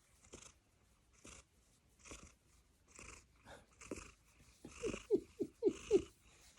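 A domestic cat having her head scratched: soft breathy sounds about once a second, then near the end a quick run of about five short whimpering squeaks, each falling in pitch. This is the funny whimpering sound she makes when her head gets scratched.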